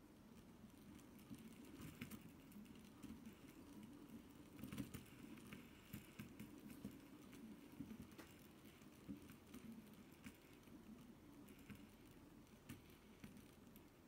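Faint whirring of several magnetic metal fidget spinners spinning on a wooden floor, with irregular light clicks and ticks as their magnets pull them around; the clicking is busiest around five seconds in.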